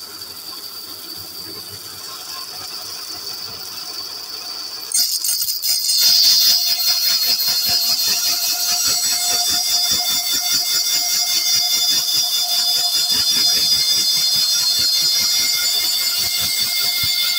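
Bandsaw running, then about five seconds in its blade starts cutting through a laminate floating-floor plank: a loud steady hiss with a high whine over it.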